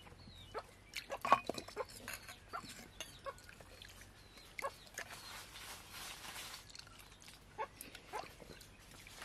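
Steel tumblers clinking and scraping against a clay pot and plates as fermented rice water (pazhaya kanji) is scooped and drunk, with slurping and swallowing; the loudest clank comes about a second in.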